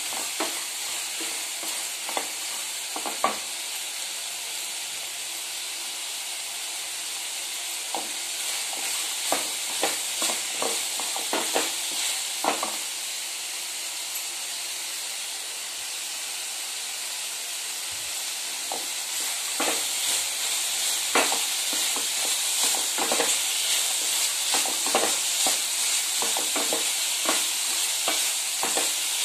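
Prawns, cluster beans, sprouted gram and sprouted small onions sizzling as they light-fry in butter in a frying pan, a steady hiss, with the spatula scraping and knocking against the pan now and then as the mix is stirred, more often in the second half.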